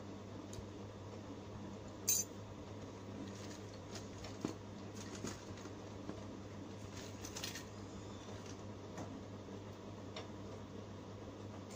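A steady low hum with a sharp metallic click about two seconds in, then a few lighter clinks.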